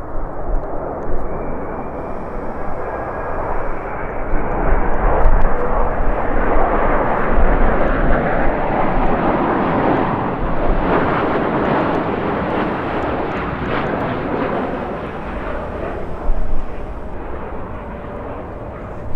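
Jet airliner passing: its engine noise swells to a peak about halfway through and then fades away. Gusty wind buffets the microphone with low rumbles.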